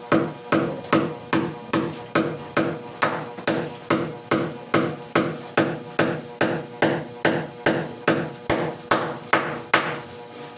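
Hammer blows struck in a steady, even rhythm, about two and a half a second, stopping near the end.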